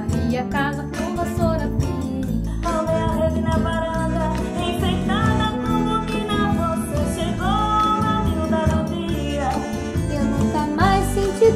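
Women singing a forró song in Portuguese, accompanied by accordion, acoustic guitar, bass guitar and triangle.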